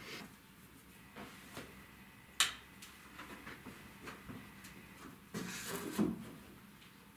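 Handling noises as a framed picture is carried and laid on a wooden drafting table: a single sharp click about two and a half seconds in, then a second of knocks and rubbing near the end as the frame is set down on the tabletop.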